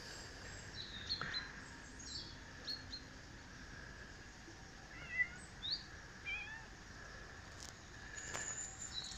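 Small woodland birds chirping on and off, short high notes and brief rising calls scattered through, faint over a quiet background.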